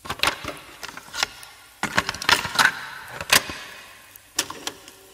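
Clicks and rattles of small hard objects, such as pens and highlighters, being handled on a desk. The clicks come thick and fast for about three and a half seconds, then twice more shortly after.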